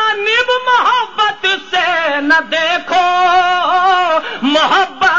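A man singing lines of Urdu verse in a drawn-out, melodic style, one voice with long held notes that waver and slide.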